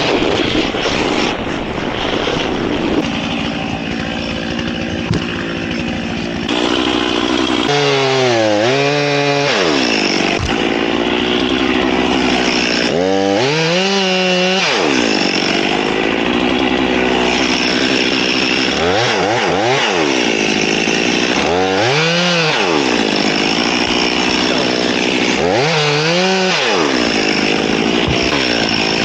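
Gas chainsaw running and cutting wood, its engine pitch dipping and climbing again several times as it loads up in the cut and revs back out.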